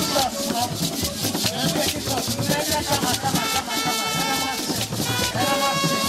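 Background music with a fast, steady beat and a melody over it.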